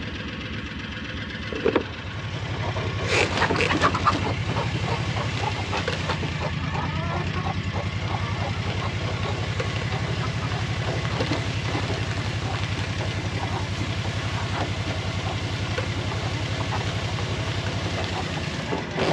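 An engine running steadily at low speed, its level stepping up about two seconds in, with a few sharp clanks and rattles around three to four seconds in.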